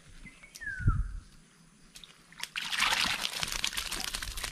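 Water pouring and splashing off a foldable mesh fish-and-shrimp trap as it is lifted out of a stream, starting about halfway through. Before that, a single low thump about a second in.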